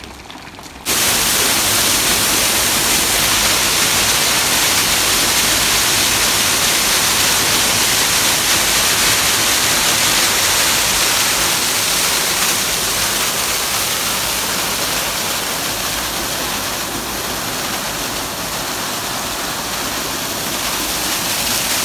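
Water of a partly frozen waterfall rushing and splashing as a steady, dense hiss that sets in about a second in.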